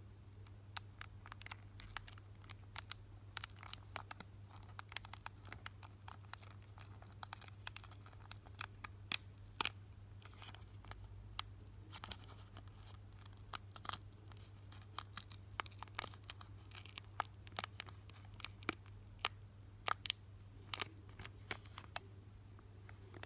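Foil wrapper of a Pokémon booster pack being peeled open by hand along its crimped top seal: many irregular sharp crackles and crinkles, over a steady low hum.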